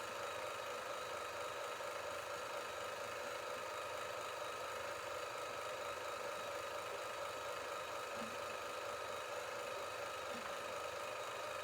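A steady, even mechanical hum with a faint hiss, unchanging throughout.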